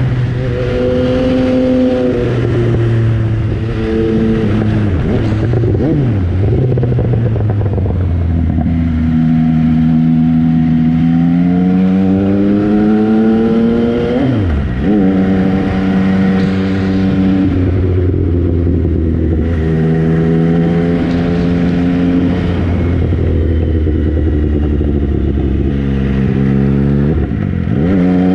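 MV Agusta Brutale 800's 800 cc three-cylinder engine running under way. The revs climb, hold steady for stretches, and several times drop sharply and pick straight back up, as at gear changes or throttle closed and reopened.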